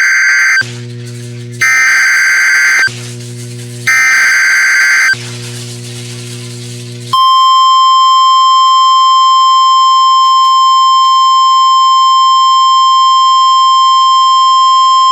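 NOAA Weather Radio Emergency Alert System activation. It opens with three SAME digital header bursts, each a harsh buzzing data squawk about a second long and about a second apart, with a low hum in the gaps. About seven seconds in, the steady 1050 Hz warning alert tone starts and holds. This signals that a new weather warning is about to be read.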